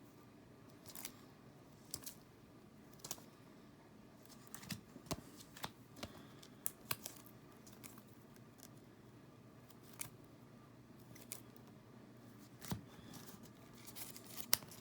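Pokémon trading cards being handled: irregular light clicks and snaps as cards are flipped through and set down, about a dozen over the stretch.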